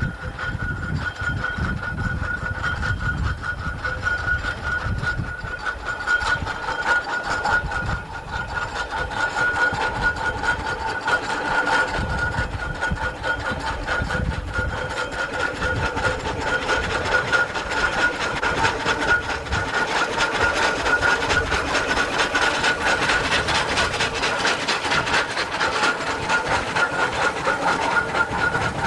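Fowell steam traction engine travelling along a road: dense mechanical clatter and rumble with a steady high whine over it, growing somewhat louder in the second half.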